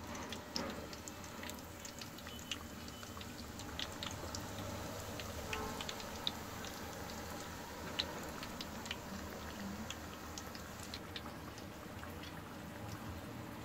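Breadcrumb-coated beef loaf shallow-frying in hot oil in a pan: a steady sizzle with scattered crackles and pops.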